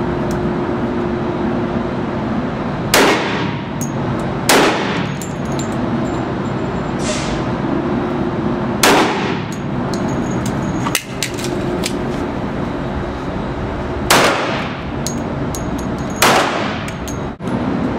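Handgun shots on an indoor range, about six at irregular gaps of one to five seconds, each with a ringing tail of echo. A steady hum runs underneath.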